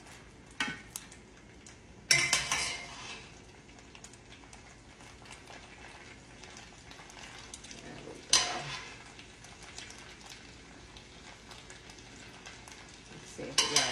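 Metal tongs clanking against a pan as spaghetti is lifted from the pot into a skillet of tomato sauce, a few sharp clatters, the loudest about two seconds in, over a faint steady sizzle from the sauce.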